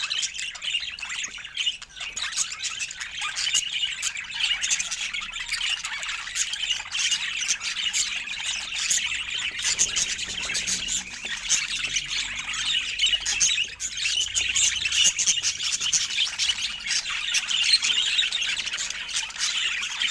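Budgerigars chattering: a dense, continuous run of short, high chirps and squawks.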